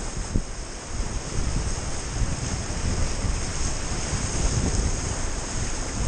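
Beas River whitewater rushing steadily around a raft running rapids, with wind buffeting the camera microphone in an uneven low rumble.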